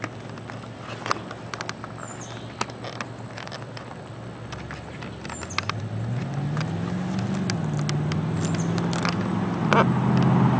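Scattered light clicks and knocks, then from about halfway a motor vehicle's engine hum grows steadily louder, its pitch rising and shifting as it draws nearer.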